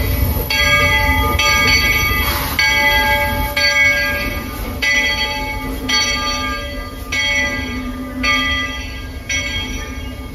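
Steam locomotive bell ringing steadily, about one stroke a second, over the low rumble of the train.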